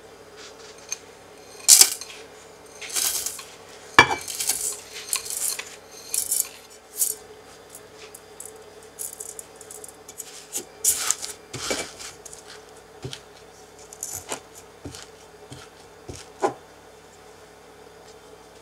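A metal utensil scraping, tapping and clinking against an aluminium cake pan and a glass bowl while buttered graham cracker crumbs are poured in and pressed into a base. The scrapes and clinks come irregularly, with two sharper knocks about two and four seconds in.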